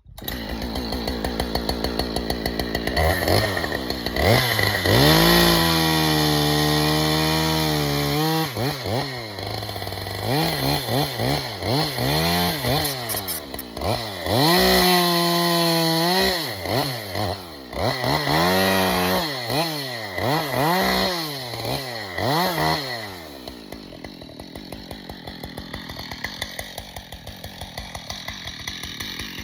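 Husqvarna two-stroke chainsaw running, revved up to full throttle and let back down several times, then dropping to a steady idle for the last several seconds.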